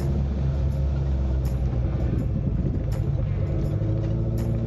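Suzuki Samurai's engine running steadily as the open-top 4x4 drives along a dirt off-road track, with a few sharp knocks from the vehicle about every second and a half.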